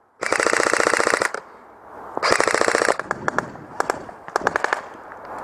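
Airsoft gun firing on full auto: a rapid burst of about a second, a second burst about two seconds in, then a few scattered single shots.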